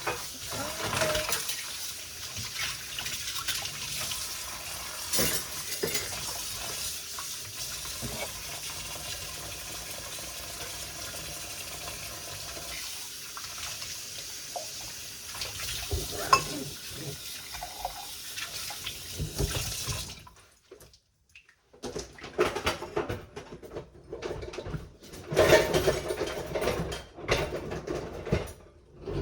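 Kitchen tap running steadily into the sink, with dishes and utensils knocking now and then. The water cuts off about two-thirds of the way through, and after it come scattered knocks and clatter of kitchenware being handled.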